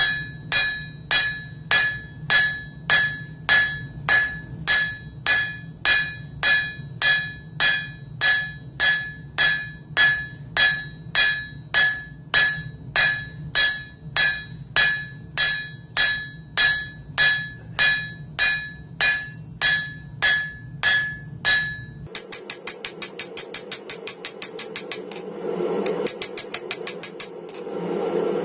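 Hand hammer striking hot steel on an anvil at a steady two blows a second, each blow ringing, while forging a hammer eye drift; a steady low rumble runs underneath. About 22 seconds in, the strikes change to quicker, lighter ringing taps.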